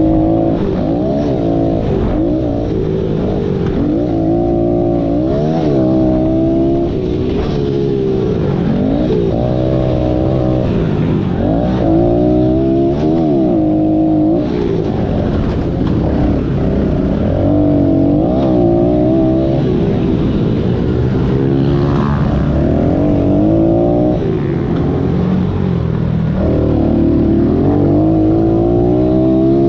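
Small four-stroke pit bike engine under race throttle, revving up and dropping back again and again as the rider accelerates, shifts and backs off through the track's corners and straights. The pitch climbs and falls every second or two.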